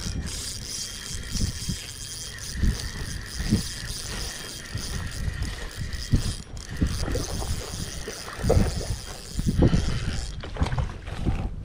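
Footsteps through grass with low wind rumble on the microphone, over a steady high hiss that stops near the end.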